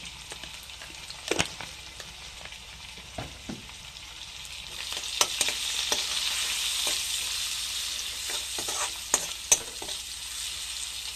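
Chopped onion and green chilli sizzling in hot oil in a metal kadhai, stirred with a steel ladle that clinks and scrapes against the pan several times. The sizzle swells about five seconds in.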